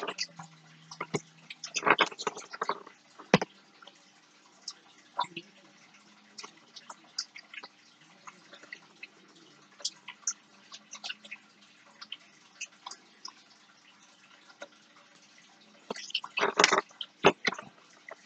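Scattered small clicks, taps and rustles of hands handling thread, a paper clip and a glue tube on a tabletop, with a denser flurry about two seconds in and again near the end.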